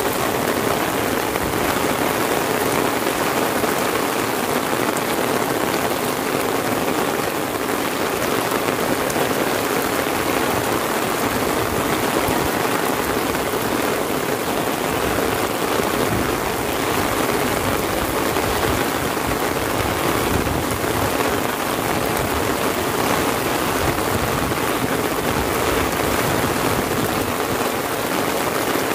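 Heavy rain falling steadily on an umbrella held overhead and on the wet paved lane around it, an even hiss with no letup.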